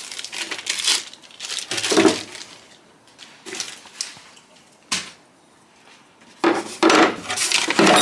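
A small plastic parts bag crinkling as it is torn open and handled, then scattered knocks and clatter of hardware in a wooden drawer, with a louder stretch of handling and paper rustling near the end.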